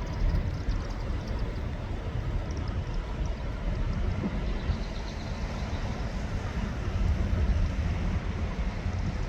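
A vehicle's low, steady rumble with no horn sounding.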